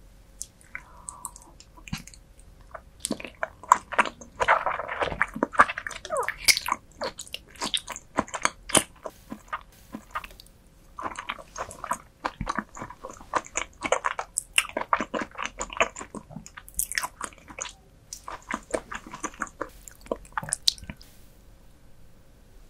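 Close-miked eating of raw beef offal: bites and chewing in several runs, with short pauses about ten and seventeen seconds in.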